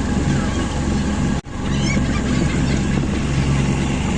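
Motorboat engine running steadily, with birds calling over it in short high cries. The sound drops out for an instant about a second and a half in.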